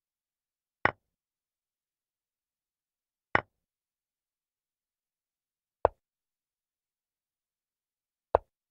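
Chess move sound effect, a short knock like a piece set down on a board, four times at even intervals of about two and a half seconds, once for each move. The first two knocks, which come with captures, are sharper and higher than the duller last two.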